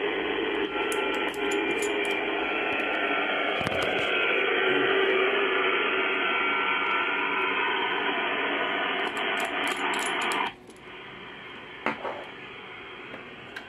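HF radio receiver audio from a loudspeaker: band-limited static hiss with faint steady tones running through it. It cuts off suddenly about ten and a half seconds in, and a few light clicks sound over it.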